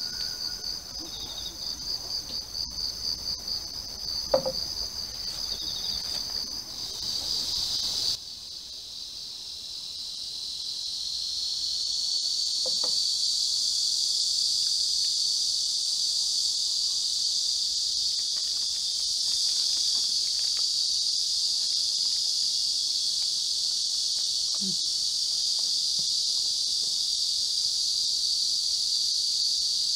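Cicadas buzzing in a loud, steady chorus. About eight seconds in, the song changes abruptly from a fast pulsing buzz to a smoother, broader hiss that swells over a few seconds and then holds. A single sharp click comes about four seconds in.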